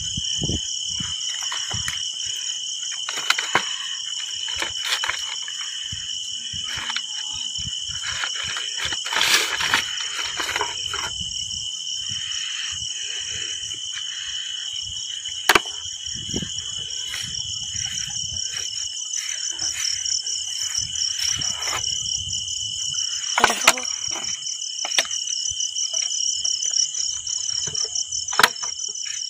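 Night insect chorus of crickets, chirring steadily at two high pitches, the higher one with a fast pulse. Over it come scattered rustles, footsteps and a few sharp knocks as a plastic jar is carried and handled.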